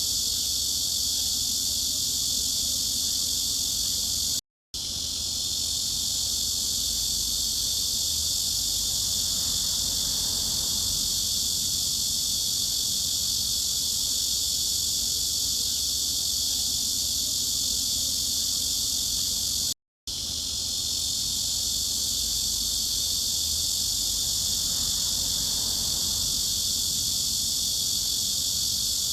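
Steady high-pitched buzz of a cicada chorus, even and unbroken except for two split-second dropouts about 15 seconds apart, where the looped recording restarts.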